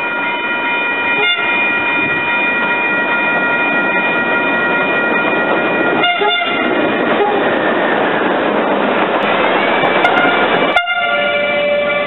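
Horn of a red CP 5600-class electric locomotive hauling a freight train, held in long steady blasts with short breaks about a second in and about six seconds in, over the running noise of the approaching train. Near the end the sound cuts abruptly to another locomotive's horn, lower in pitch and held steady.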